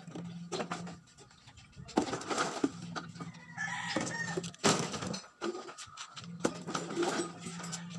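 Empty plastic bottles crackling and knocking together as they are handled, their caps twisted off and the bottles tossed onto a pile, in a string of sharp clatters. A bird calls briefly about halfway through.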